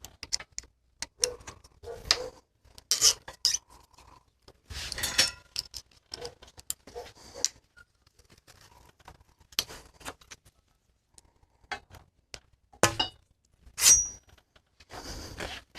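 Scattered small metallic clicks, clinks and short scrapes of hand tools and parts while lock-on grips are unbolted and slid off a mountain bike handlebar, with a few louder clinks near the end.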